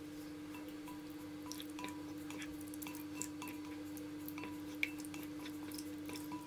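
Wooden spatula stirring curds in hot whey in a nonstick saucepan: faint wet clicks, taps against the pot and small liquid drips, over a steady low hum.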